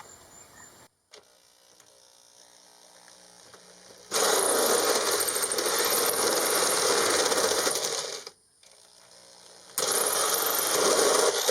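Electric drill cutting with a 7/8-inch hole saw into the sheet-metal floor of a van, in two runs: one of about four seconds, then a pause, then a second one near the end.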